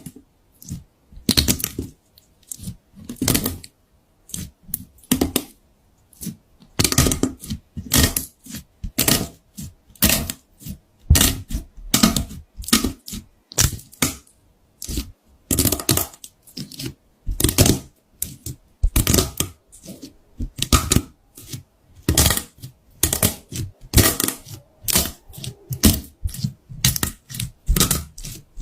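Slime being squished and pressed by hand, making a run of short crackling pops and clicks, one or two a second.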